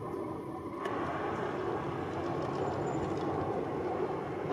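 Jet noise from a Sukhoi Superjet 100 airliner's twin SaM146 turbofans as it passes over on landing approach with gear down: a steady rushing rumble that grows a little louder about a second in.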